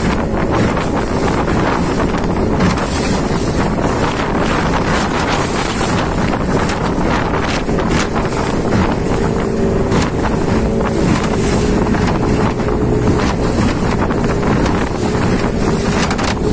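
Motorboat running at speed, its engine a steady drone under heavy wind noise on the microphone, with water rushing and spraying off the hull.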